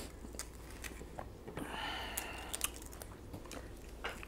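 Quiet close-up eating sounds: scattered small clicks of handling and chewing as a charred beef sausage is held and bitten, with a soft hiss about two seconds in.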